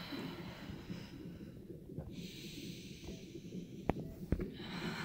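A woman in labor breathing out heavily, two long breathy exhalations about two seconds in and near the end, with two light knocks between them.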